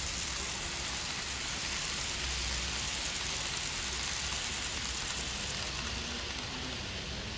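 Steady, even hissing noise with a low hum underneath, unchanging throughout.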